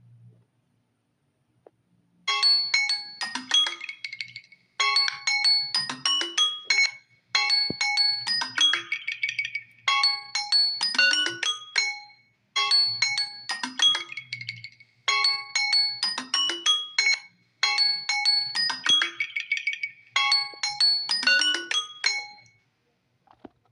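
A Samsung Galaxy Tab A9 alarm tone playing through the tablet's speaker: a short melodic phrase repeated about every two and a half seconds, eight times, starting about two seconds in and stopping shortly before the end.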